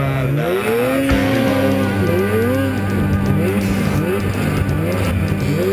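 Snowmobile engines revving up several times, each rev climbing in pitch and then holding, over a steady lower drone, with music playing along.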